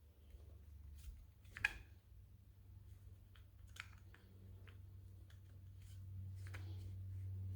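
Scattered light clicks and taps of small metal parts being handled, with one sharper click about a second and a half in, over a low steady hum.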